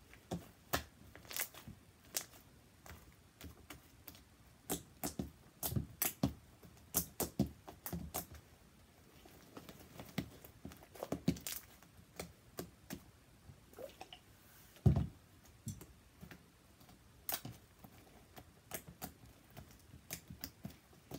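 Sticky slime, mixed with Dial soap, being stretched, pulled apart and kneaded on a tabletop: irregular wet snapping, clicking and tearing sounds, with one louder thump about fifteen seconds in.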